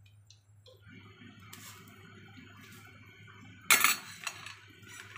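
Metal ladle stirring and scooping soup of fried tofu and fish balls in a steel saucepan. About three-quarters of the way through there is one loud clink of metal on metal, followed by a couple of lighter clinks.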